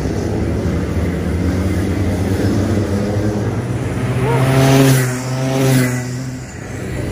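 Rotax Max two-stroke kart engines: a steady drone of several karts, then two karts pass close, loudest about five and six seconds in.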